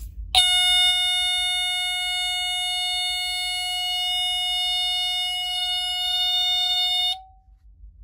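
Teledyne Water-Pik D-1 smoke alarm sounding, set off by aerosol test smoke. It gives one steady, unbroken alarm tone that starts just after the spray and cuts off abruptly after about seven seconds.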